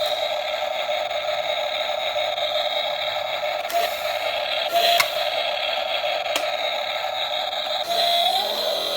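Steady high whine of a radio-controlled model excavator's small electric hydraulic pump motor running under load, with a few sharp clicks and a short rise in pitch near the end.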